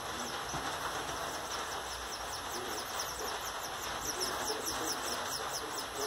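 Double-collared seedeater (coleiro) nestlings begging at the nest with a rapid run of short, high, falling peeps, about four or five a second, as the female feeds them, over a steady hiss.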